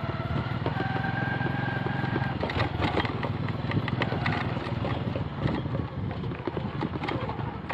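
Small motorcycle engine running steadily as the bike rides over a rough dirt track, with scattered knocks and rattles.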